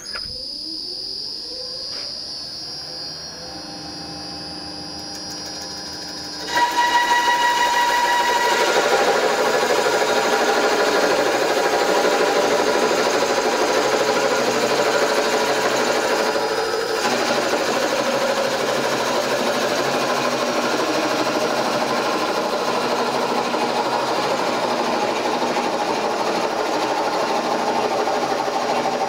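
Bowl coring machine running: a motor whine rising in pitch at first, then about six and a half seconds in a loud steady cutting noise as the curved coring knife bites into the spinning wood block. The knife is being fed in slowly to avoid a catch on the block's uneven wall, and the cut eases slightly about seventeen seconds in.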